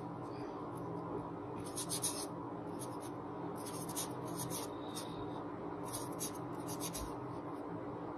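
Felt-tip marker writing on paper: short scratchy strokes that come in little clusters, over a faint steady low hum.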